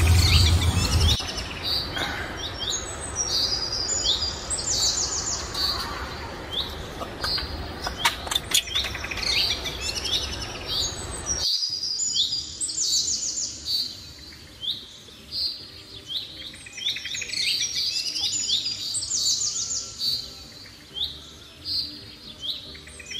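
Songbirds chirping, many short high notes repeating and overlapping, over a low background rumble that drops away abruptly about halfway through.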